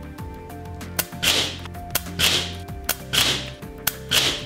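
FX Wildcat Mark II .25 caliber PCP air rifle with its shroud fitted, firing four shots about a second apart. Each shot is a sharp click followed a moment later by a louder burst. Light background music plays underneath.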